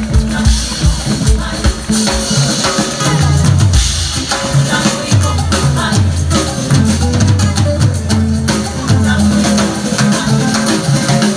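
Live rock band playing loud through a stage PA: a drum kit with bass drum and snare driving a steady beat under guitars and sustained bass notes.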